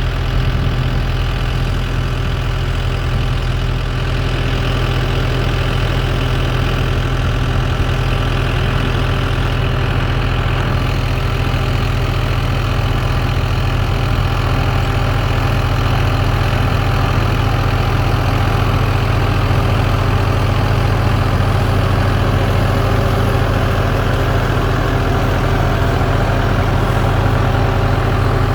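Case IH Puma tractor's diesel engine running steadily under load while pulling a Vermeer 504R round baler through hay. The sound grows slightly louder in the second half.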